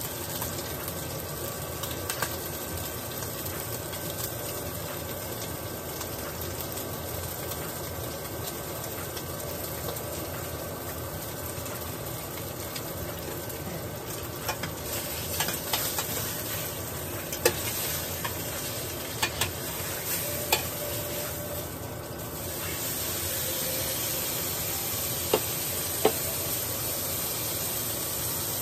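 Ribeye steak sizzling in a hot stainless steel frying pan, a steady frying hiss that grows a little louder about two-thirds of the way through. Several sharp clicks of metal tongs against the pan in the second half.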